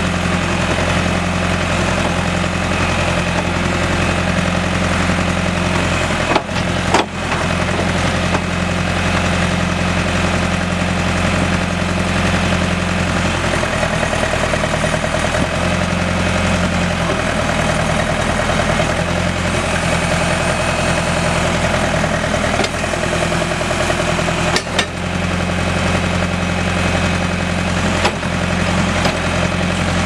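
John Deere 310A backhoe's 4219DT 3.6-litre four-cylinder diesel engine running steadily, with its note shifting somewhat in the middle. There are a couple of brief sharp clicks about seven seconds in and again near twenty-five seconds.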